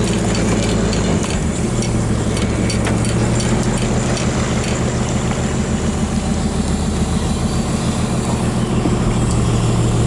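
Fishing boat's engine running steadily at trolling speed, a low drone with a hiss of wind and water over it.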